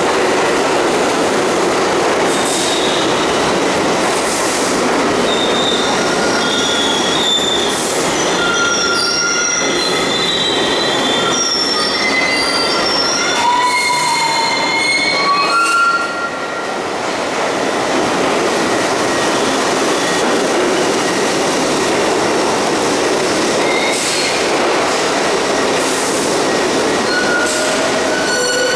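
New York City subway train on the (7) line pulling into a station, its wheels squealing in many short high squeals over a steady rumble. The squealing stops about halfway through as the train halts, and a steady rumble goes on.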